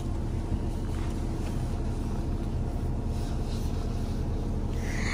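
Steady low rumble of a bus's engine heard inside the passenger cabin.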